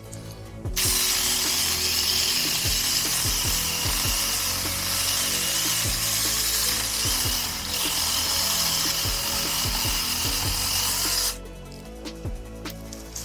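Saker 20-volt mini cordless electric chainsaw running with a steady high whine. It starts suddenly about a second in, dips briefly in the middle, and cuts off abruptly near the end, over background music.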